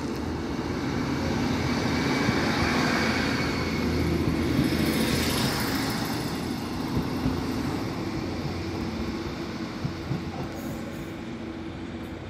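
Northern Class 155 Super Sprinter diesel multiple unit pulling out, its underfloor diesel engines and wheels on the rails growing louder as it passes close by, then fading as it draws away.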